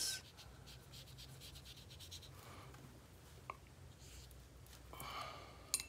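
Faint brushing of a paint-laden watercolour brush stroking across paper as a swatch is painted, a little louder near the end, with a couple of small clicks.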